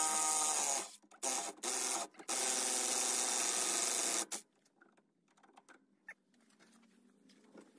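Cordless impact wrench hammering on a rusted shock-absorber mounting bolt of a 1965 VW Beetle's rear suspension, to break the seized fastener loose. It goes in bursts: a first run, a couple of quick blips, then a run of about two seconds that stops about four seconds in.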